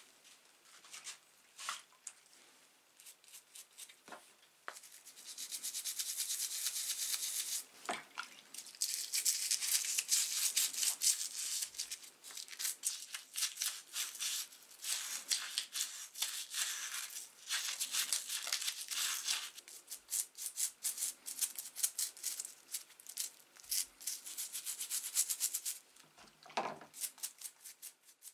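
A toothbrush scrubbing a small metal part of an old hand pump in soapy water: fast, hissy brushing strokes after a few light taps at the start.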